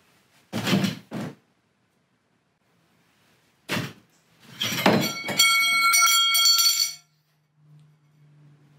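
A few short thuds, then the metal towel bar drops from its wall mount with a clatter and rings with several high tones for about a second and a half, stopping suddenly.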